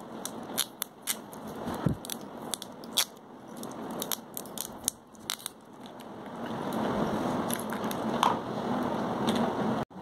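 Green adhesive tape being pulled off its roll and wound around a flower stem: a run of sharp crackles and clicks, easing into a softer rustle over the last few seconds.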